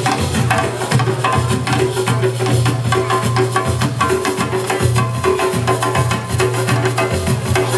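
Music with a steady beat: a bass line and busy hand percussion.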